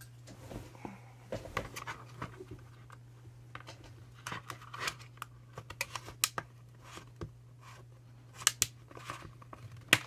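Plastic opening picks clicking and scraping in the seam of an Amazon Fire HD 8 tablet's plastic back case as it is pried apart, with irregular sharp clicks from the case's snap clips being worked loose.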